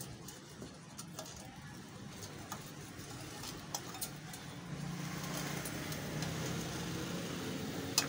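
Faint light clicks and chinks of a coiled heater element wire being pressed into the grooves of a clay hotplate. A low steady hum builds up from about halfway through and becomes the loudest sound.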